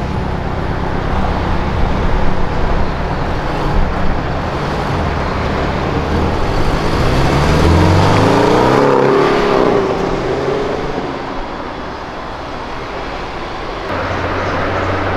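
Porsche Boxster engine pulling away at low revs, then rising in pitch as it accelerates past about seven to nine seconds in, the loudest part, before fading into steady traffic noise near the end.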